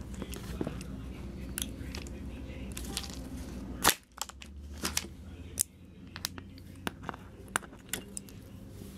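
Hands working apart an RC drift car's front suspension and C-hub: scattered small clicks and taps of plastic parts and metal screws, with one louder knock about four seconds in.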